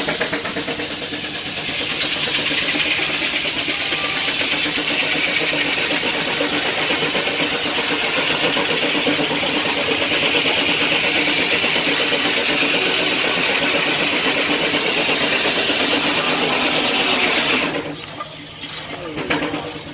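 Steam-tractor-driven sawmill saw cutting lengthwise through a log, a loud steady rasping whine that stops abruptly near the end as the cut finishes.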